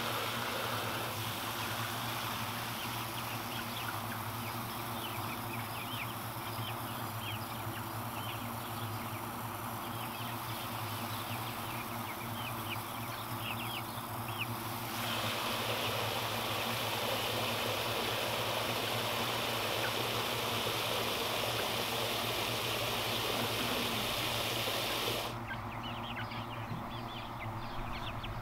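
Garden hose with a spray nozzle running, water hissing and splashing as it rinses and fills a tub. About halfway through the spray gets louder and fuller, then shuts off a few seconds before the end.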